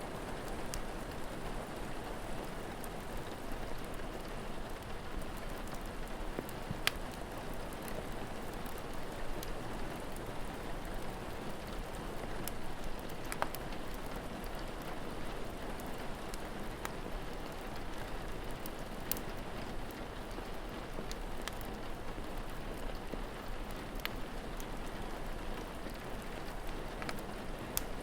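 Steady rain falling, with scattered sharp crackles and pops from a wood fire.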